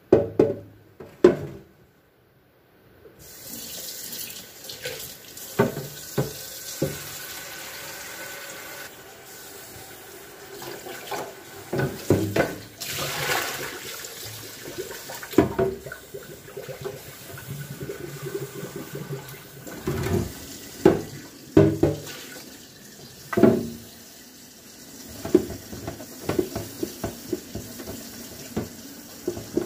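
Kitchen tap running into a sink while fridge bins are rinsed, with repeated knocks and clunks of the bins being handled. It starts with two loud knocks, and the water comes on about three seconds in.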